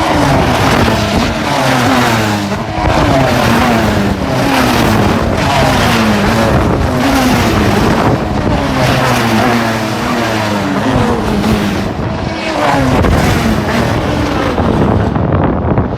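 Single-seater race cars running flat out past the track, one after another, each engine note falling in pitch as it goes by.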